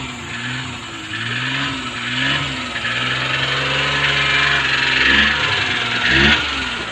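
Truck engine running just after catching on a hard morning start, revved up and down several times, with a couple of quick blips of the throttle near the end.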